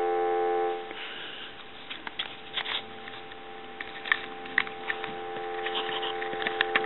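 Telephone dial tone, the steady two-note hum of a North American line, heard through a telephone line analyzer; it cuts off suddenly about a second in. Light scattered clicks and ticks follow, and the dial tone comes back near the end.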